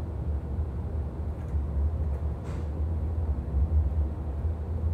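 NJ Transit Multilevel passenger coach in motion, heard from inside the cabin: a steady low rumble of the running train.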